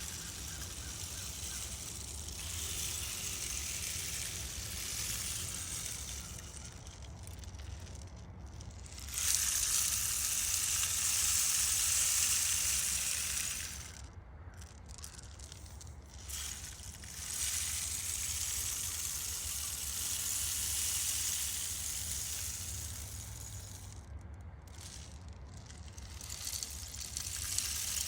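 Rainstick tipped over again and again: its fill trickles down inside in a long rain-like rush that swells and fades, dying away briefly three times as the stick is turned.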